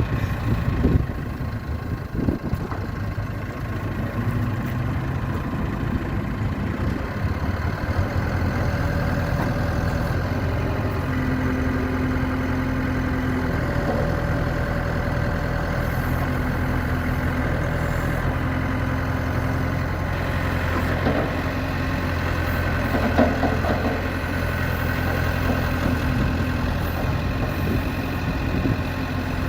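1995 JCB 210S backhoe's diesel engine idling steadily.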